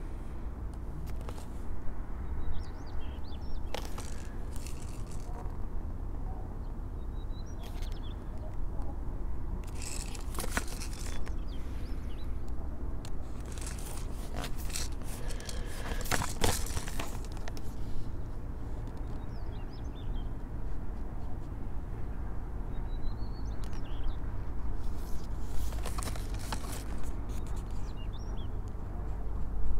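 Cardboard box of an airsoft pistol being handled and turned in the hand: scattered bursts of rubbing, scraping and rustling against the card, over a steady low background rumble.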